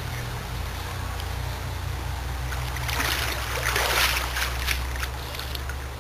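Pool water splashing and streaming as a swimmer climbs up the pool steps and out of the water, loudest about four seconds in, over a steady low hum.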